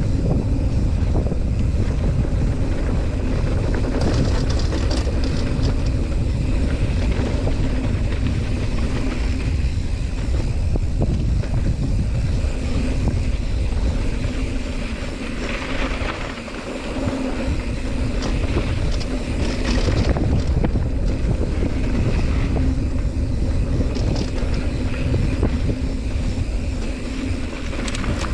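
Wind buffeting the microphone of a mountain bike descending a dirt trail, with tyre roll and scattered rattles of the bike over bumps. The noise eases briefly about halfway through, then picks up again.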